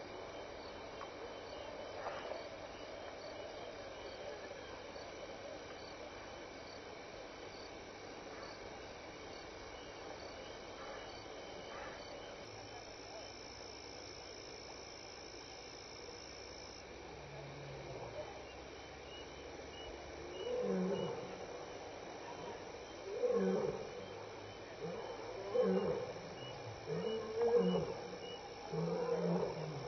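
Lion roaring: about twenty seconds in, a run of deep, loud grunting calls begins and repeats every second or so, the closing grunts of a roar sequence.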